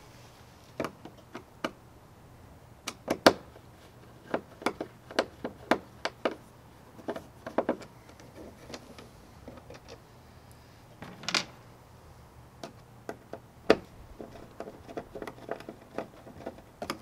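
Phillips screwdriver turned by hand, backing screws out of a small plate on a plastic kayak hull: irregular clicks and taps of the tool, screws and plate, with one longer scrape about eleven seconds in.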